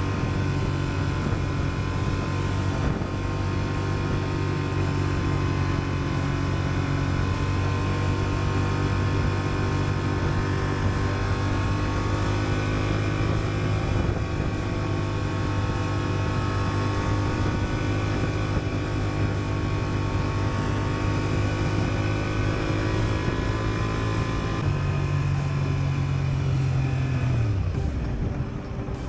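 Onboard sound of a Honda Transalp 750's parallel-twin engine running steadily at town speed, with wind and road noise. Near the end the engine note falls away as the bike slows.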